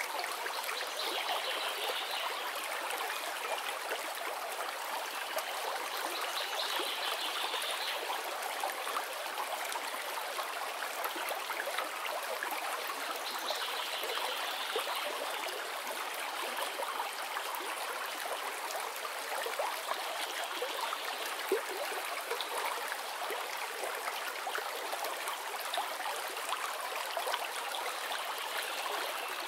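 Steady bubbling and trickling of aquarium water, aerated by air stones and submersible pumps.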